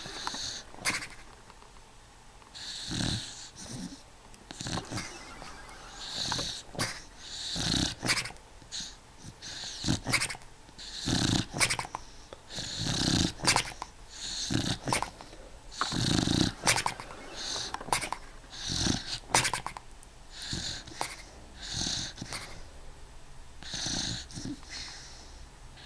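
An eight-year-old beagle snoring in its sleep, about one snoring breath every second or two.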